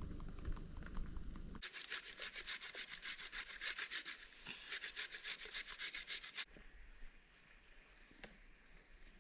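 Rapid, even scraping strokes, about five a second, for about five seconds, then they stop: a utensil scraping and stirring food in a frying pan.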